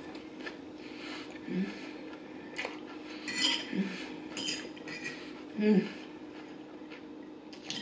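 Metal fork clinking and scraping against a plate as salad is picked up, in a few short taps. Three brief low hums from the eater, the loudest about three-quarters of the way through.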